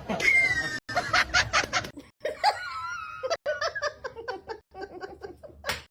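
A person laughing hard in quick repeated bursts, broken by a few abrupt cuts.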